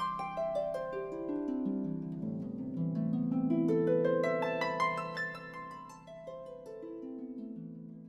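Instrumental background music of plucked strings, a flowing run of many notes over lower held notes, fading out near the end.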